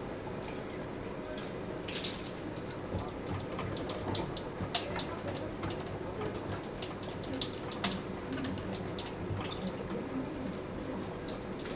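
Scattered light clicks and taps of small objects being handled, over a steady hiss and hum. The loudest clicks come about 2, 5 and 8 seconds in.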